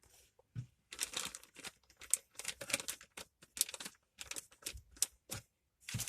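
Plastic packaging crinkling and rustling as it is handled, in a run of short irregular bursts with brief gaps.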